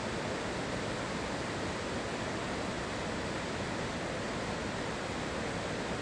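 A two-tiered mountain waterfall pouring over rock ledges: a steady, even rush of falling water.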